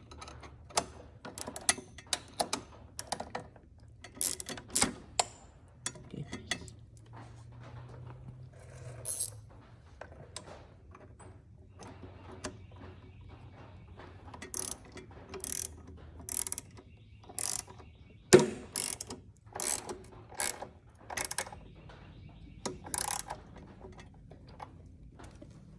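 Hand ratchet wrench clicking in short, irregular runs as a nut is worked, with sharp metal-on-metal clinks; one louder knock about eighteen seconds in.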